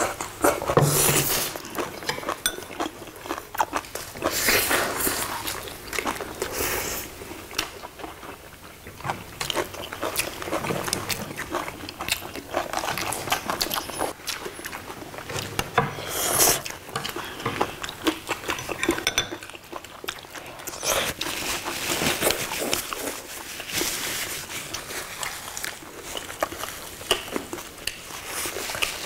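Several people eating a meal: loud slurps of noodles every few seconds, chewing, and chopsticks clicking against plates.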